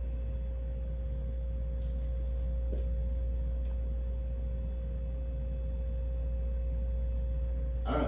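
Fasco Parlour stack-motor ceiling fan running, a steady low motor hum with a thin steady tone above it and faint air hiss from the blades, with a few faint ticks.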